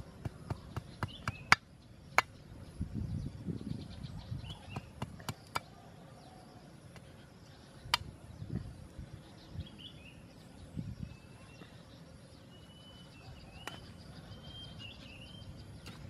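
A long knife blade chopping and whittling a wooden stick held against a brick: a quick series of sharp knocks in the first six seconds, then only a few scattered strokes. Birds chirp in the background in the second half.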